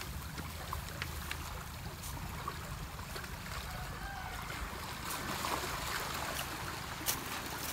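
Steady outdoor rushing noise with a low, fluttering rumble underneath and a few faint clicks.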